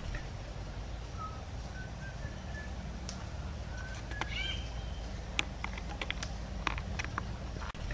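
Birds calling: short whistled notes repeating, with a longer, higher call about four seconds in, over a steady low rumble. Sharp crackles of dry leaves and twigs underfoot are scattered through.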